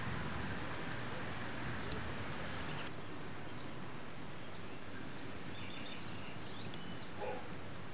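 Steady outdoor background noise with a hiss, shifting in tone about three seconds in, with a few faint bird chirps in the second half.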